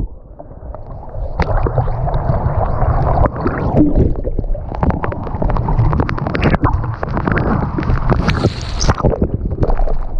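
Gurgling, rushing water with wind buffeting the microphone, muffled at first, then full of short crackles and splashes.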